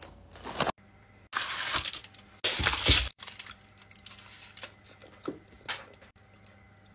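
Foil candy-bar wrapper crinkling and tearing, with a louder burst of rustling about two and a half seconds in, then only faint small clicks.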